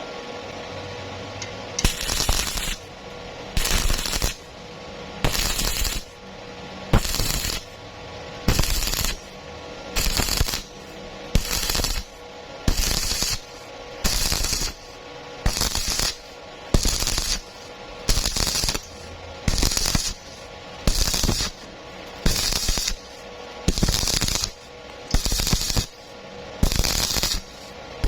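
Welding arc crackling in short, evenly spaced bursts, about one a second, each lasting about half a second: start-stop stitch welding. The bursts begin about two seconds in.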